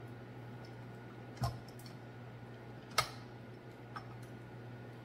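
A few short metal clicks and knocks as a grain mill attachment is fitted into the attachment hub of a KitchenAid stand mixer, the sharpest about three seconds in, over a faint steady hum.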